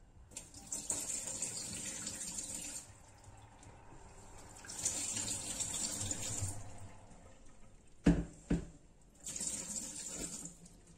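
Water running into a kitchen sink in three spurts of a second or two each, with two sharp knocks about eight seconds in, the loudest sounds.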